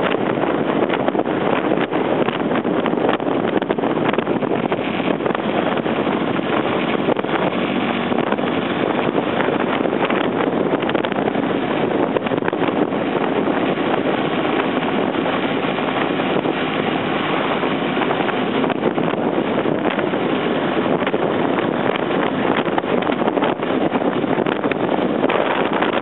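Wind rushing over the microphone of a camera mounted on a motorcycle riding at a steady cruising speed, with the bike's engine and road noise mixed into a loud, even rush.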